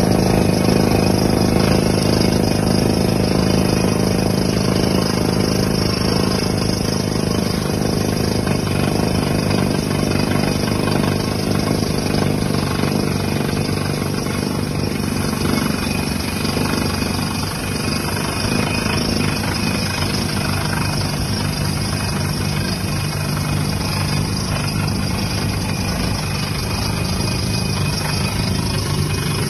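Truck-mounted water well drilling rig's engine running steadily, a continuous machine drone that eases off slightly about halfway through.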